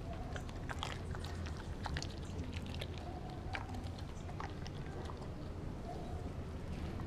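A Doberman chewing and biting a chunk of raw meat, with irregular clicks and smacks of its jaws and teeth.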